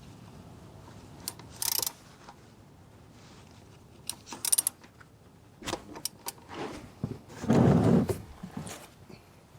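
A socket wrench and socket clinking and clicking in short bursts while working the oil drain plug loose, with a longer, louder scraping sound about eight seconds in.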